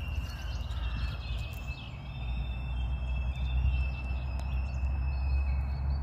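Outdoor ambience: a steady low rumble of wind on the microphone, with a thin, steady high tone that drifts slightly lower and a few faint clicks.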